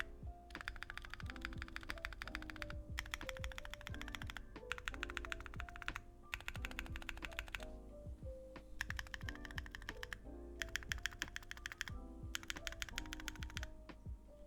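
Fast typing on Bsun Melody Redux tactile switches in a Neo60 Core keyboard with a carbon fibre plate, no foam and GMK keycaps. The keystrokes come in quick runs broken by short pauses. The sound is deep and muted, with a high-pitched upstroke.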